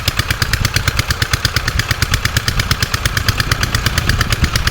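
Small single-cylinder engine running steadily at a constant speed, its rapid, even firing pulses unbroken.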